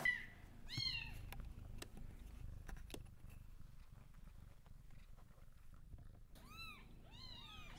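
A small kitten mewing faintly in high, thin calls: once about a second in, then several times in quick succession near the end.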